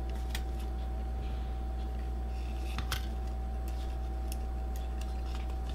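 Steady low electrical hum with a thin high tone over it, and a few faint, light clicks as small camera parts are handled during reassembly.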